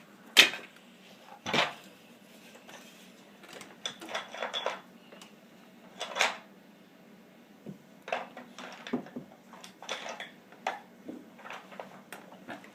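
Wooden toy building pieces and wood shims clattering and knocking together as a child handles them: irregular sharp clicks, the loudest knocks about half a second and a second and a half in.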